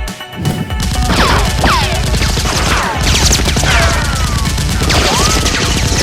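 Sci-fi laser-blaster shots fired in quick succession, each a short falling-pitch zap, over a dense battle din with music underneath.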